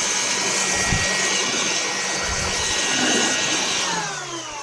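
Electric air blower running at its fast speed, a loud steady rush of air with a motor whine; near the end it winds down, the whine falling in pitch as the air noise fades.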